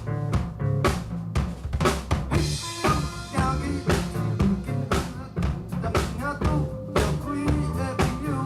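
Live band playing a song, led by a drum kit: regular kick and snare hits with a cymbal wash a few seconds in, over bass and other pitched instruments.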